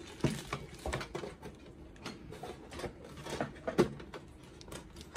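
Plastic housing of a Zebra ZC100/300 card printer being handled: a string of light clicks and knocks as the top cover is unclipped and lifted off, with one sharper knock about two-thirds of the way through.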